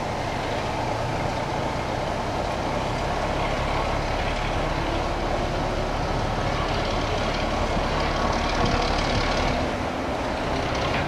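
Heritage passenger train running slowly, heard from an open carriage window: a steady rumble that grows a little louder about eight seconds in.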